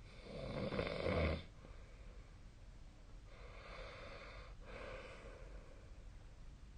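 A person snoring in sleep: one loud snore of about a second near the start, then a softer, longer breath of about two seconds in the middle.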